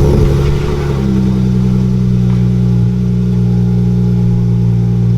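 Car engine starting with a brief rise in revs, then settling into a steady idle from about a second in.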